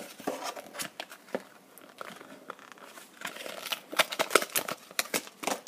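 Rustling, crinkling and small clicks of packaging being handled as a plastic iPhone bumper case is pulled out of its box. The handling grows busier and louder in the second half.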